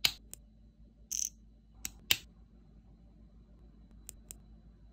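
Small plastic parts of a Blokees Transformers Soundwave model kit being pressed and snapped together by hand: a string of sharp clicks, the loudest about two seconds in, with a brief scrape about a second in and two lighter clicks near the end.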